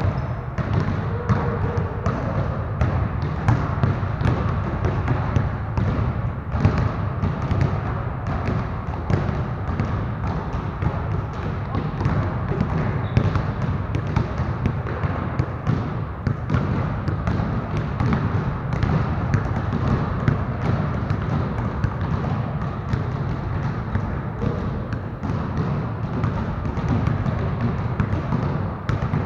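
Several basketballs being dribbled at once on a gym floor, an unbroken patter of overlapping bounces that echoes in the hall.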